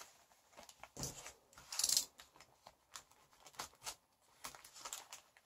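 Soft rustling and crinkling of a paper-wrapped package being handled, with scattered small clicks and taps and a brief louder rustle about two seconds in.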